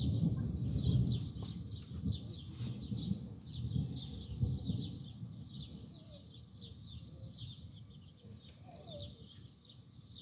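Low rumble of distant thunder dying away over the first few seconds, while small birds keep up quick, high chirping.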